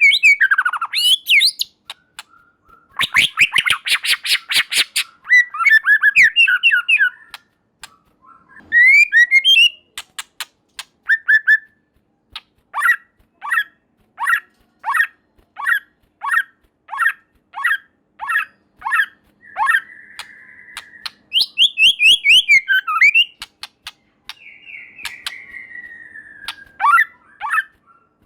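White-rumped shama singing a loud, varied song of whistled glides. A harsh raspy chatter comes about three seconds in, then a long run of sharp falling notes, about two a second, in the middle.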